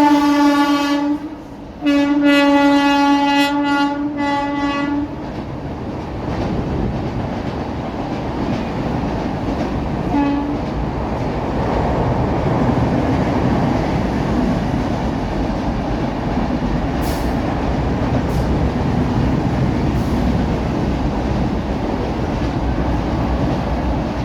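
Indian Railways Humsafar Express locomotive horn sounding as the train departs. A long blast ends about a second in, a second long blast runs from about two to five seconds in, and a brief toot comes around ten seconds in. Between and after the blasts, the train's running rumble and wheel clatter continue steadily.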